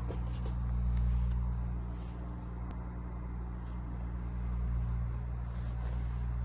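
Fujimo SOHO Deluxe massage chair running, its motors giving a steady low hum that swells and eases slowly, with a few faint clicks.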